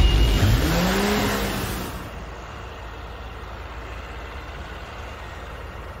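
Cartoon scene-transition sound effect: a whoosh with a tone that rises and falls in pitch, fading out about two seconds in. A steady low rumble follows.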